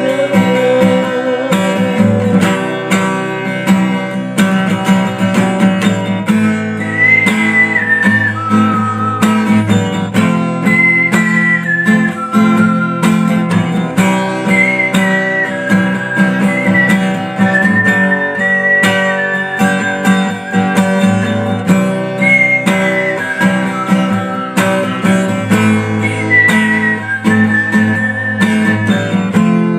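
Instrumental break of a slow rock song: strummed acoustic guitar chords under a lead melody line with gliding, bent notes.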